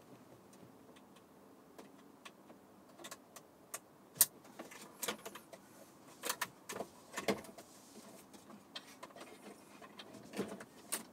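Plastic clicks and rattles of a wiring connector being unplugged and plugged in behind a car's dashboard screen, with hands handling the cables and trim: scattered sharp clicks, the loudest about four seconds in.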